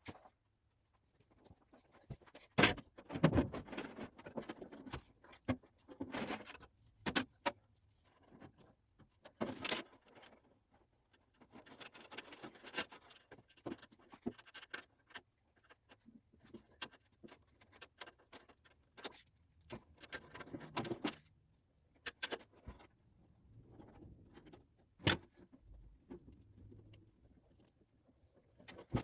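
Hand tools and small parts being handled and put away, with scattered clinks, knocks and rustling at irregular intervals.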